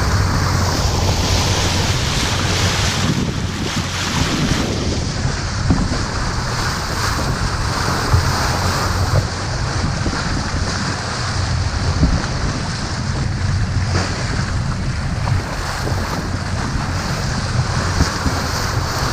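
Water rushing and splashing along the hull of a sailboat under way, with steady wind buffeting the action camera's microphone as a low rumble.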